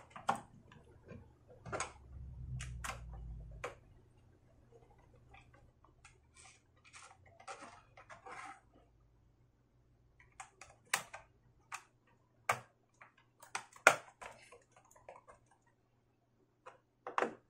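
Irregular plastic and metal clicks and taps from work on a laptop's underside: the SSD in its drive mounting pushed into the bay and the bottom cover panel fitted back. A low rumble of the laptop shifting on the table about two seconds in; the sharpest click comes near fourteen seconds.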